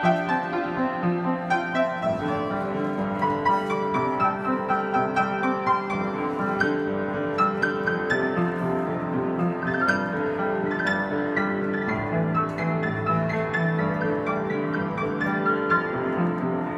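Background music led by piano, with many quick notes over sustained lower tones.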